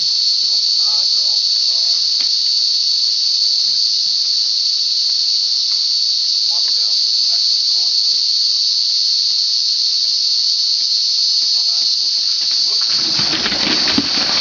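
Insects droning in a loud, steady, high-pitched chorus, with faint voices underneath. Near the end a broad rushing noise with crackles sets in.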